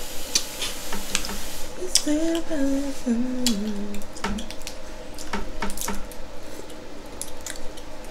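Wet, sticky eating of saucy boiled seafood: shells cracked and picked, with many sharp clicks and smacks and sauce dripping. About two seconds in, a short hummed 'mmm' wavers and falls in pitch for about two seconds.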